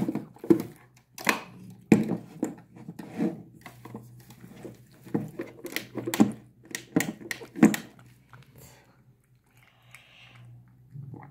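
A cat eating porridge from a small bowl: repeated wet chewing and lapping smacks, one or two a second, thinning out after about eight seconds.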